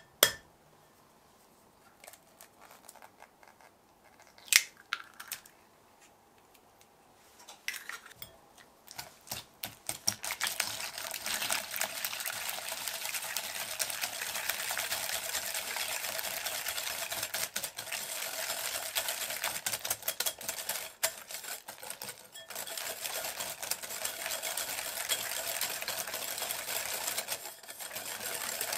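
A few utensil clinks and knocks, then from about ten seconds in a continuous fast beating and scraping of ingredients in a mixing bowl, running steadily until just before the end.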